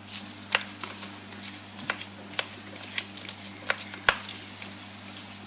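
Scattered sharp clicks and taps of tools and parts being handled on a workbench, with one louder knock about four seconds in, over a steady low hum.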